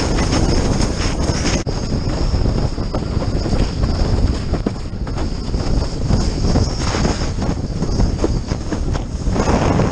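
Wind buffeting the microphone over a steady rush and slap of choppy water under a windsurf board sailing at speed. The noise swells louder near the end.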